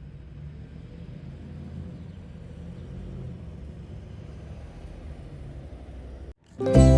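Steady low rumble of street traffic in a town centre. It cuts off about six seconds in, and loud plucked-string music with a ukulele-like sound starts near the end.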